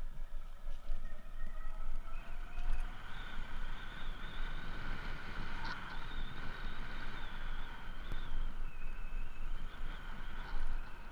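Electric trike's motor whining under power, its pitch climbing over the first few seconds as it gathers speed, dipping about eight seconds in and climbing again near the end. Underneath runs a low rumble of tyres on the path and wind.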